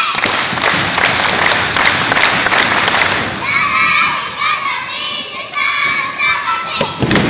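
Crowd cheering, with high-pitched children's voices shouting over it from about three and a half seconds in.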